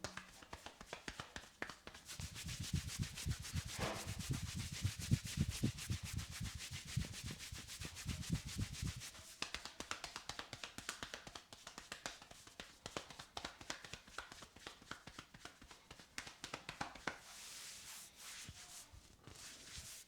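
Rapid hand slapping and tapping of a percussive head and upper-body massage: heavy, closely packed thuds for several seconds, then lighter quick taps and rubbing of hands on skin and hair.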